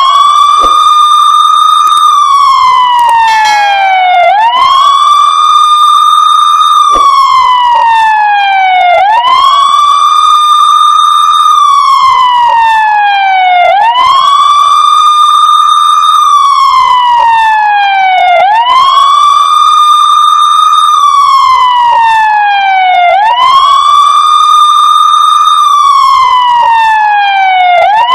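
Police siren wailing in a slow, repeating cycle: each sweep climbs quickly, holds at the top for a couple of seconds, then falls slowly before climbing again, about every four and a half seconds.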